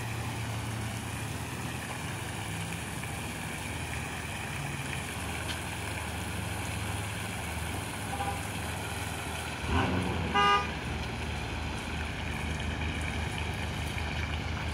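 Fountain jets splashing steadily over a low hum. About ten seconds in, a brief rising sound is followed by a short car-horn toot.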